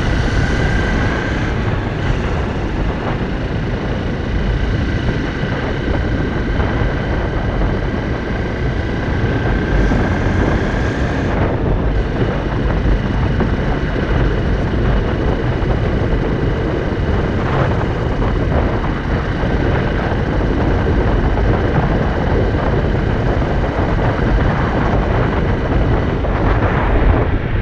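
Honda CRF250L single-cylinder motorcycle riding along at road speed, its engine running steadily under a heavy rush of wind on the microphone.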